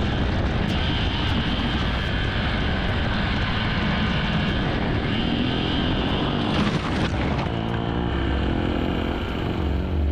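Motorcycle engine running under way, buried in heavy wind rumble on the microphone, with a brief louder rush about seven seconds in.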